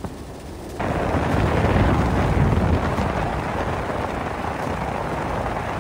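Wind rushing over the microphone on a moving motorcycle, over engine and road noise; the wind noise comes in suddenly about a second in and then holds steady.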